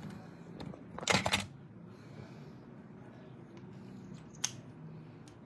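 Light handling noise: a short cluster of sharp clicks and rustles about a second in, then a single click later, over a quiet background.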